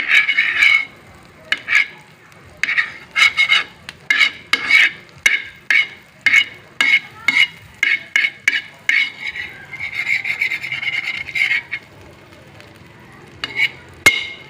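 A spatula scraping and stirring in a frying pan, melting butter, in quick repeated strokes with one longer continuous scrape about ten seconds in and a couple of sharp clicks near the end.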